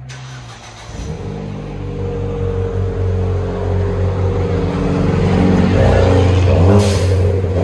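Ford Fiesta ST's turbocharged four-cylinder revved through a 3-inch stainless Thermal R&D cat-back exhaust with resonator, muffler and quad tips. The revs climb about a second in and are held, growing louder for several seconds. Near the end the throttle is let off with a short sharp hiss from the turbo's blow-off valve.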